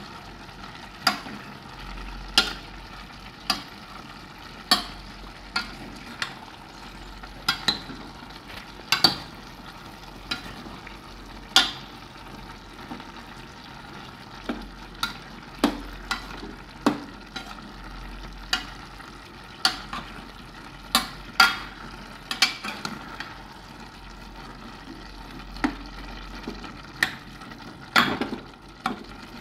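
A spoon stirring a chunky, simmering stew of huitlacoche, cheese and vegetables in an enamel pot, knocking against the pot's sides every second or two over a steady bubbling hiss from the boiling stew.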